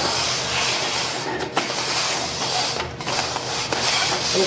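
Red plastic party cups sliding and scraping across a wooden tabletop as they are shuffled quickly, a continuous rasping rub.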